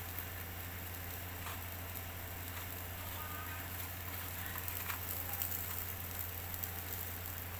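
Beef satay sizzling and charcoal crackling faintly on a small charcoal grill, with a few light ticks, over a steady low hum.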